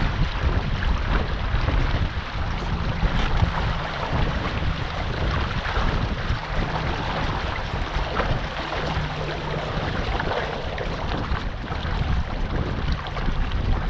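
Wind buffeting the microphone over a steady rush of water along the hull of a Catalina Capri 22 sailboat under sail.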